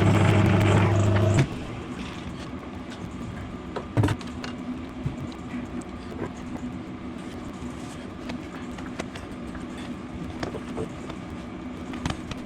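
A workshop machine tool's electric motor running with a steady hum, then switched off and stopping suddenly about a second and a half in. After that only light clicks and one sharp knock about four seconds in, like tools or parts being handled.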